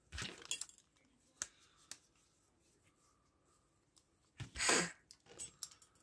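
Light metallic clicks and clinks from a Westclox Baby Ben alarm-clock movement being handled between the fingers, its brass plates and wheels knocking and shifting. A brief, louder rustling noise comes about three-quarters of the way through.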